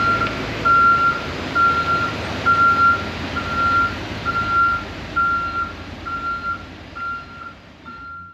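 School bus backing up, its reverse alarm beeping a single tone a little more than once a second over the engine's low running. The sound fades over the last few seconds, then cuts off suddenly.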